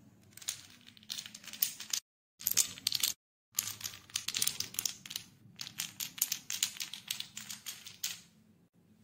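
Painted wooden dominoes toppling in a chain: a fast, uneven run of light wooden clicks and clatters as each piece knocks into the next, broken twice by short silences.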